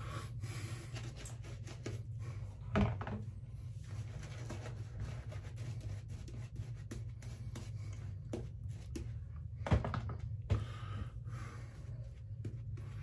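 Shaving brush rubbing lather onto a stubbled face and neck: a soft, scratchy brushing, with a few light knocks about three seconds in and around ten seconds.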